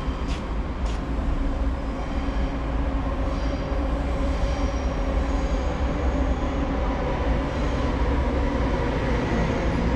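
A train running: a steady low rumble with faint whining tones and two short clicks near the start.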